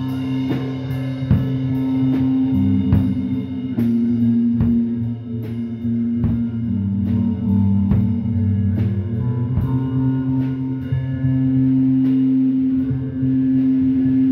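Live rock band playing: electric guitars holding sustained, droning chords over a drum kit. The drum hits thin out in the last few seconds while the guitars ring on.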